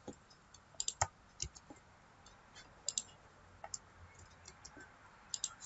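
Computer mouse clicking: a dozen or so short, sharp clicks scattered at uneven intervals, several of them in quick pairs or triples.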